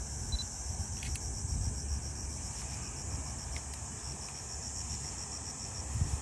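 Insects chirring on the hillside: a steady high-pitched buzz with a fast, even pulse. Beneath it is a low rumble of wind on the microphone.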